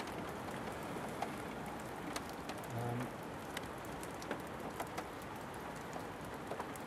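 Steady rain falling, with individual raindrops ticking sharply and irregularly on nearby surfaces, and a brief low hum about three seconds in.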